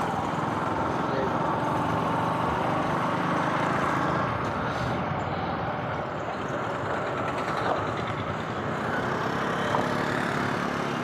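Motorbike running as it rides along a road, under a steady rush of road and wind noise.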